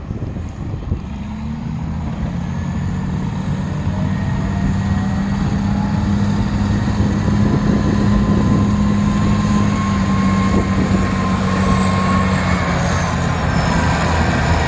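Caterpillar 980B wheel loader's diesel engine working hard, growing louder, with a whine that climbs in pitch over the first several seconds and then holds.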